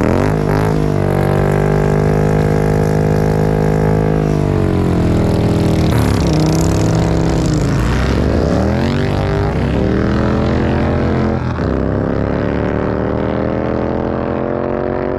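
Motorcycle engine revving under load, its pitch climbing at the start, holding, dropping around four to six seconds in, sweeping up sharply near the middle and then rising again more gradually.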